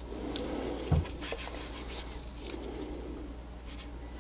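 Faint handling noise as multimeter test probes are set against the contacts of a T12 soldering tip cartridge: a few light clicks and a soft dull thump about a second in.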